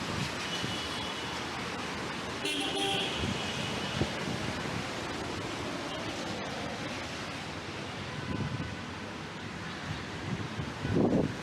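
City street traffic with a steady hiss of noise, and a vehicle horn tooting briefly about two and a half seconds in. Wind buffets the microphone near the end.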